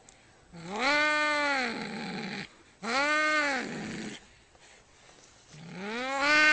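An angry domestic cat yowling: three long, drawn-out calls, each rising and then falling in pitch, with a breathy hiss trailing each one. The third call starts near the end.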